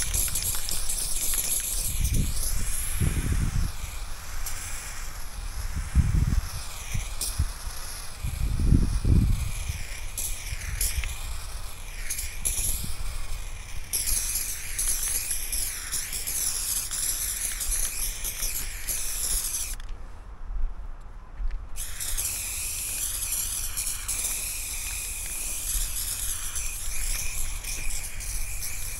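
Aerosol spray paint cans hissing in long passes as a graffiti piece is filled in, stopping for about two seconds about two-thirds of the way through. A few low thumps come in the first ten seconds.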